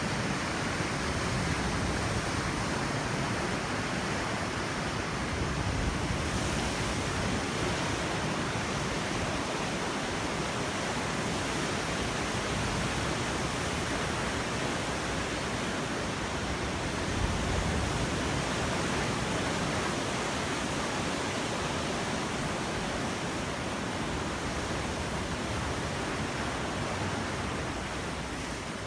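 Steady, unbroken noise of ocean surf breaking on a beach, with wind.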